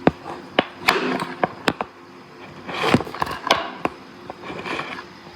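Objects being handled at close range: a run of sharp clicks and knocks in the first two seconds, a brief rustle about three seconds in, and a few more clicks after it.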